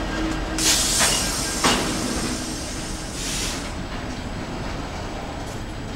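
Double-stack intermodal container well cars rolling past close by: a steady rumble of steel wheels on the rails, with a sharp clack about one and a half seconds in and brief hissing bursts around one second and three seconds in.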